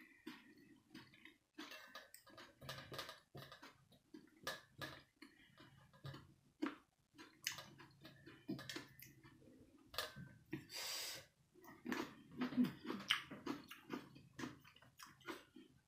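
A person chewing and eating: irregular wet smacks and clicks of the mouth, with one longer hissing burst about eleven seconds in.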